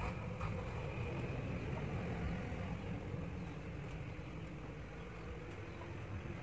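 Steady low background rumble with a fainter hiss, the kind of sound a vehicle or machine running some way off would make, with no clear events.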